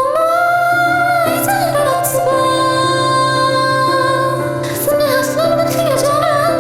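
Pop song with a woman singing long held notes over instrumental backing.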